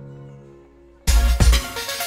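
Background music: a soft melodic passage fades out, and about a second in a much louder beat-driven track with heavy bass and drum hits starts abruptly.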